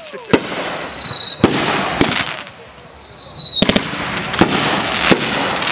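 Fireworks going off: two shrill whistles that each fall in pitch over about a second and a half and stop abruptly, with sharp bangs around them. In the last two seconds comes a rapid run of cracks and pops.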